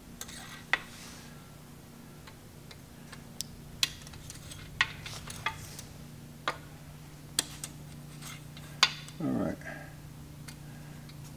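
Scattered light metallic clinks and taps as the steel parts of a cam bearing installation tool (driver bar, centering cone, bearing on its expander) are handled and fitted against the engine block, about a dozen short knocks at irregular intervals.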